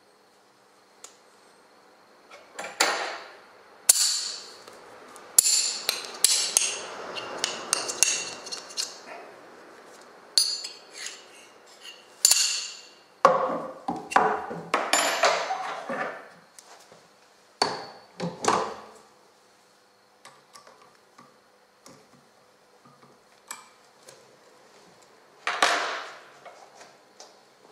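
Metal clanks and knocks as a steel disc fitted with neodymium magnets is handled, set down on a wooden base and mounted on a motor's three-jaw chuck. There is a series of irregular knocks, some with a short metallic ring, then a pause and one more clank near the end.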